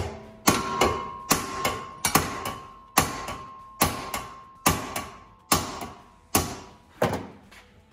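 Hammer striking a strip of steel flat bar clamped in a bench vise, bending the mounting strap a little further. About nine blows land a little under a second apart, each with a metallic ring and a small rebound tap.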